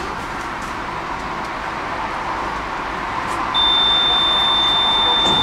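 Tram interior noise, then about three and a half seconds in a steady high-pitched electronic buzzer tone starts and holds: the tram's door warning signal.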